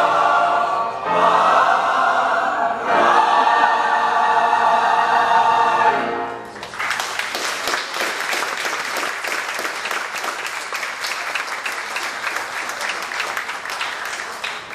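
Mixed choir of women's and men's voices singing the final phrase of a song, ending on a held chord about six seconds in, followed by audience applause.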